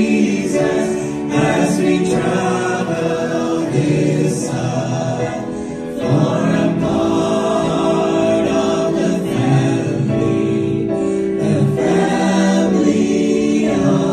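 A mixed vocal group of men and a woman singing a gospel song in harmony through microphones, with long held notes.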